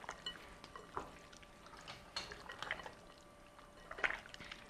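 Raw chicken pieces being mixed by hand in a soy-sauce marinade in a glass bowl: faint, wet squelches with scattered light taps against the glass.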